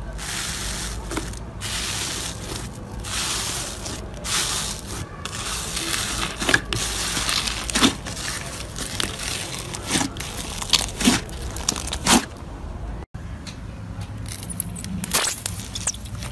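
Hands pressing and stretching a sticky, bubbly slime mixed with foam beads: a hissing crackle full of small pops and snaps. About thirteen seconds in it cuts to a pile of jelly-cube slime being squeezed.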